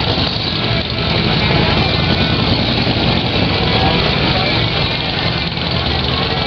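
Engines of several large touring motorcycles riding slowly past at low revs in a steady, dense din, with voices of a crowd mixed in.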